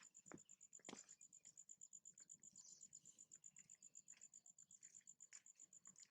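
Faint, steady high-pitched insect chirping, pulsing about seven times a second, with a couple of soft clicks early on.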